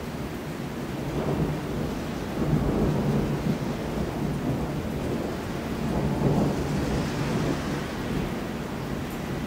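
Thunder rumbling over steady rain. The rumble builds about a second in, swells twice, and dies away near the end.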